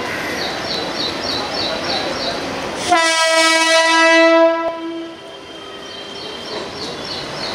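Mumbai AC local electric multiple unit departing, its steady running noise broken about three seconds in by one long horn blast of about two seconds. A rapid high chirping repeats before the horn and again near the end.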